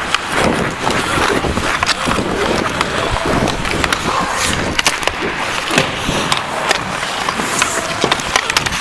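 Hockey skate blades scraping and carving the ice in repeated strides, with scattered sharp clicks and knocks of sticks and puck.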